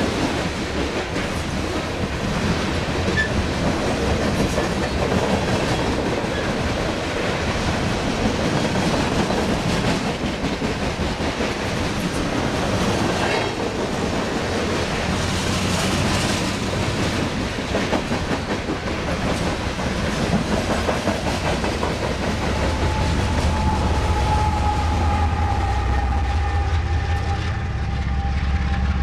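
Loaded coal cars rolling past: steady rumble of steel wheels on the rails with clickety-clack over the rail joints. In the last several seconds a GE ES44AC diesel locomotive's low engine drone comes in, with a faint whine sliding slightly down in pitch.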